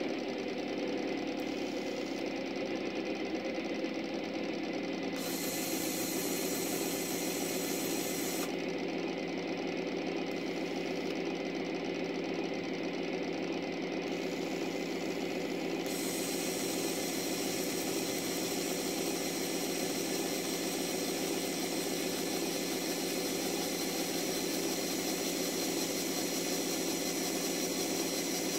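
Small electric winch motor and gears of an LGB model crane wagon running steadily, a fast, even mechanical whir, as the crane lowers its hook.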